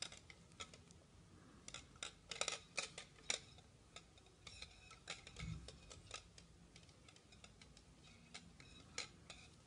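Faint, irregular clicks and ticks of metal double-pointed knitting needles knocking together as black yarn is tied onto the work, with one dull knock about halfway through.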